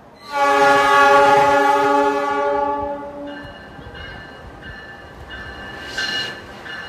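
A diesel locomotive's air horn sounds one long chord-like blast of about three seconds as the train arrives. After that comes a high squeal from the train's wheels, broken by short gaps, as the train rolls in.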